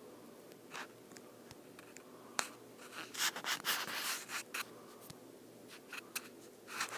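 Northern cardinal flying into a window pane: a few sharp taps against the glass and, about three seconds in, a scratchy flurry of wings and feet on the glass lasting over a second.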